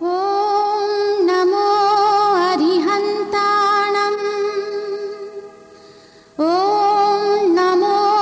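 Title music: a female voice sings long held notes with small ornaments over a low drone. It fades away about five seconds in and comes back about a second later, sliding up into another held note.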